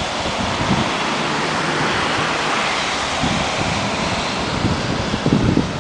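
Wind rushing over the microphone: a steady hiss that swells a little around two seconds in, with low buffeting thumps near the end.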